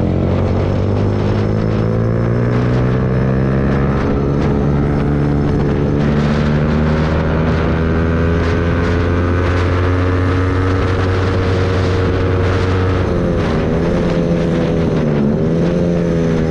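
Yamaha MT-15's single-cylinder engine running through an aftermarket Akrapovic exhaust while the bike is ridden. Its pitch climbs slowly, dips briefly twice near the end, then rises again.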